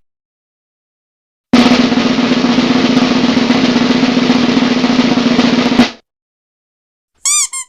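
Snare drum roll sound effect, a fast continuous rattle lasting about four and a half seconds that cuts off suddenly. Near the end come two very short chirping tones.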